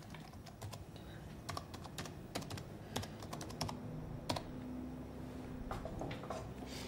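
Typing on an Apple laptop keyboard: quick irregular key clicks, thinning out after about four and a half seconds, over a faint steady low hum.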